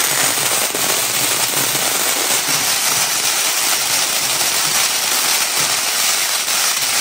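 A long string of firecrackers going off in a rapid, unbroken crackle of small bangs, steady in loudness throughout.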